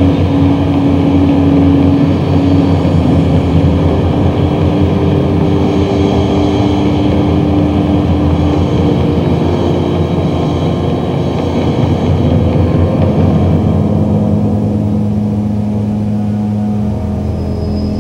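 Experimental ambient soundtrack: a dense, steady, rumbling drone with held low tones that shift slowly, resembling engine or traffic noise.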